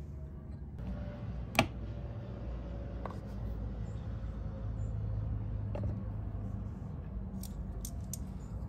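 A sharp click about a second and a half in, then a few fainter clicks, from hands handling scooter parts and tools, over a steady low background hum.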